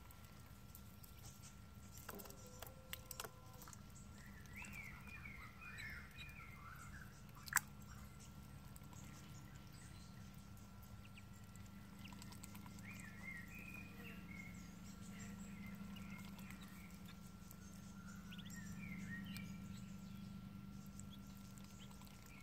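Muscovy ducklings peeping softly in three short flurries of cheeps. A sharp click about seven and a half seconds in is the loudest sound.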